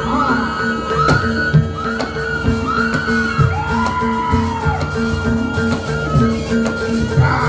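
Live traditional Javanese music for a barongan dance: a melody gliding up and down in arching phrases over a steady held tone, with low drum and gong-like notes in an even rhythm.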